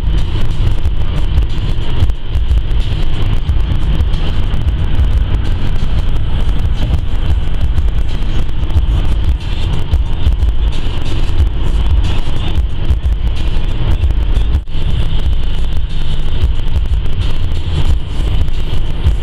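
Car interior noise at motorway speed: a loud, steady low rumble of tyres, engine and wind heard inside the cabin.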